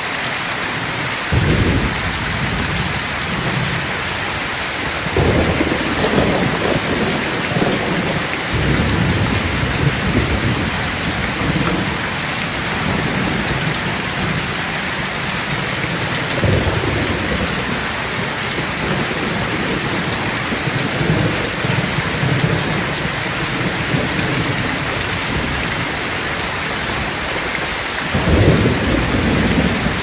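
Heavy rain pouring steadily onto a roof and foliage. Deep rolls of thunder rumble in several times: about a second and a half in, a few seconds later, around the middle, and loudest near the end.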